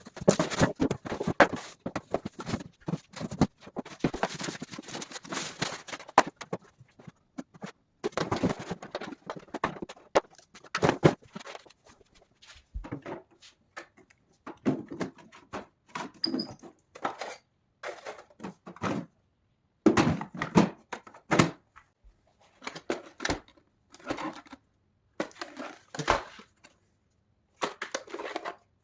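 Unboxing handling noise: a cardboard box and its packaging being opened and handled, with rustling, scraping, knocks and thuds in bursts separated by short pauses.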